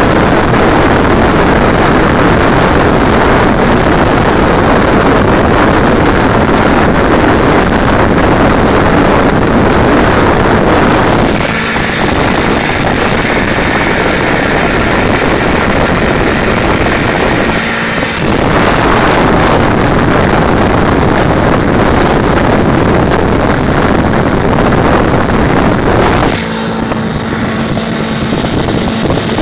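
Heavy wind rushing over a phone microphone on a motorcycle at highway speed, near 90 mph, over the 2006 Suzuki GS500F's engine. The rush eases for several seconds in the middle and again near the end, where a steady low engine hum comes through.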